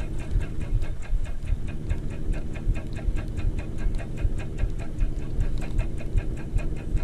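Shimano spinning reel being cranked steadily, its gearing ticking about seven times a second as line is retrieved against a hooked fish. A constant low rumble of handling noise on the body-mounted camera lies underneath.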